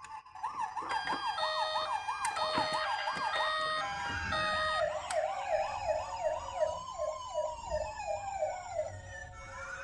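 Several electronic emergency sirens sounding together: a fast warbling wail, a stepping two-tone hi-lo, and a slower wail that rises and falls, all starting suddenly, with a low rumble underneath.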